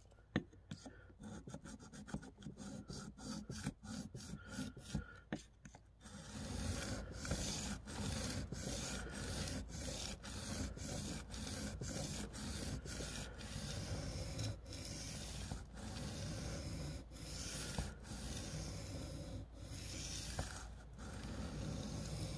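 Spyderco Para 2 Wharncliffe steel blade stroked back and forth across a wet, roughly 600-grit sharpening stone in freehand sharpening, a repeated rasping scrape. The strokes are short and quick for about the first six seconds, then louder and longer.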